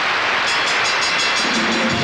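Studio audience applauding a sunk putt, a dense, steady clapping. Band music comes in under the applause near the end.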